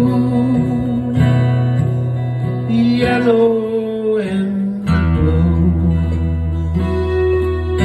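Acoustic guitar strummed in chords, with a man's voice holding long, wavering sung notes over it through the first half; a new, deeper chord is struck about five seconds in.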